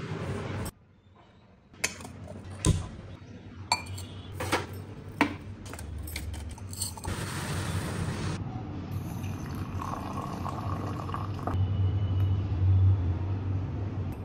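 Stainless-steel kitchenware being handled: a few sharp clinks and knocks of steel vessels, then a hissing, bubbling stretch of milk coming to the boil in a steel pan, and liquid being poured into a steel tumbler.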